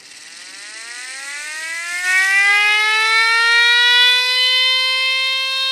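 Spring-wound clockwork personal alarm siren from the 1960s, its bladed rotor spinning up inside the hub: a wail that rises in pitch and grows louder over the first few seconds, then holds a steady high tone.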